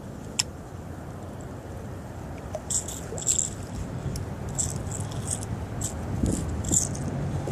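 Baitcasting reel being cranked on a retrieve: a single sharp tick just after the start, then short, irregular rattling clicks from about two and a half seconds in, over a steady low wind rumble on the microphone.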